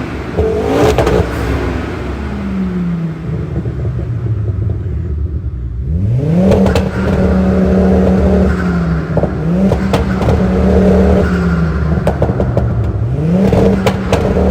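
Big-turbo Ford Focus ST225's turbocharged five-cylinder engine, with a straight-through exhaust, revving three times. Each time it shoots up and is held at a fixed rpm for a second or two with crackles from the exhaust, as with launch control holding the revs, then drops back.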